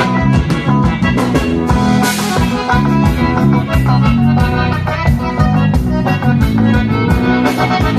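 Live dance band playing an instrumental break between sung verses: a melody line over bass and drums with a steady beat.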